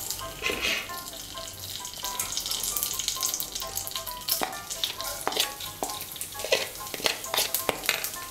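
Bay leaves and whole cumin seeds sizzling in hot mustard oil in a kadai, the tempering (phoron) step. Sharp crackling and spitting gets thicker from about halfway through, as the cumin goes in.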